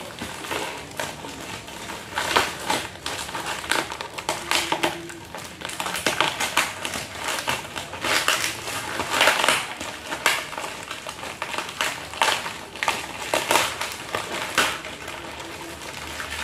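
Plastic packaging crinkling and rustling in irregular bursts as it is pulled and torn open by hand.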